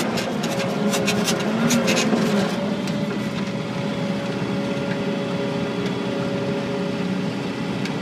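Vehicle engine running, heard from inside the cab, its pitch rising and falling slightly over the first two seconds or so while sharp rattling clicks sound, then running steadily.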